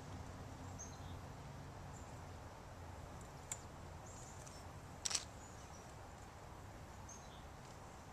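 Quiet outdoor ambience: a low steady hum with scattered short, high bird chirps, and a single sharp click about five seconds in.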